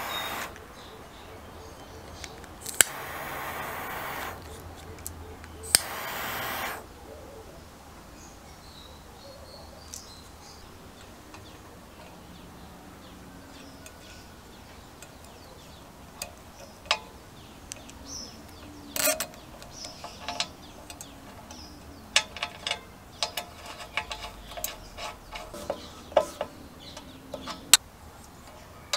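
A jet lighter hissing in short bursts of about a second each, in the first seven seconds, as heat-shrink tubing on a wire is shrunk. Later, a run of small sharp clicks and ticks from spade connectors being pushed onto terminals and wires being handled.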